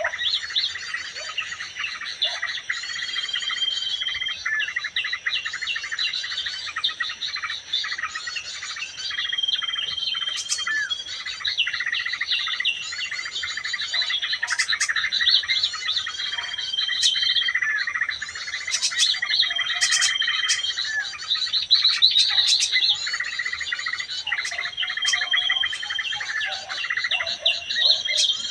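Prigantil gunung bird-lure call: dense, continuous chattering and chirping, with a short flat whistled note that recurs every few seconds.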